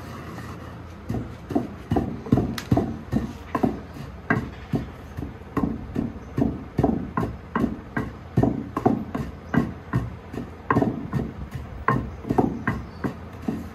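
Long wooden pestle pounding dry ajwain, mustard seed and fennel in a mortar, a steady run of dull thuds at about two to three strokes a second, starting about a second in. The seeds are being coarsely crushed.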